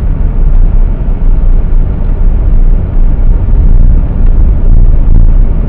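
Car driving, a steady low rumble of engine and road noise heard from inside the cabin.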